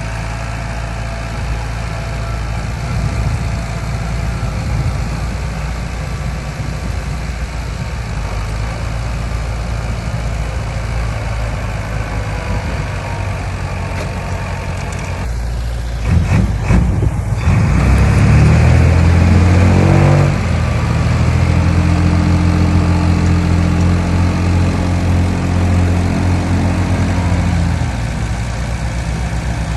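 Heavy diesel engine of earthmoving machinery running at a low steady idle. About halfway through it grows louder and climbs in pitch, then holds a higher, louder note under power for several seconds before easing back near the end.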